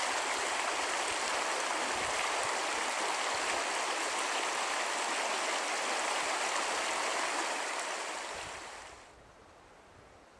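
Shallow, rocky mountain creek running over stones, a steady rush of water that fades out about eight to nine seconds in.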